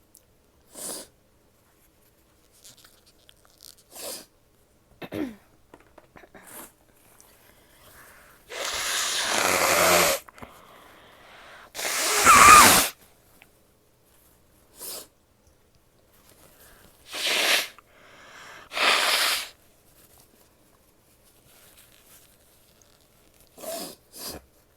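A woman sneezing several times, the loudest sneeze about halfway through, with short sniffs and breaths in between.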